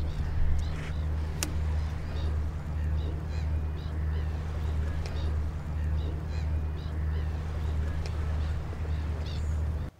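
Waterbirds calling in short, repeated calls over a steady low rumble; everything cuts off abruptly near the end.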